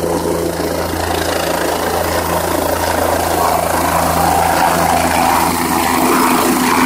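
Helicopter coming in to land, its rotor giving a steady low beat under the engine's hum, growing slightly louder in the second half as it nears the ground.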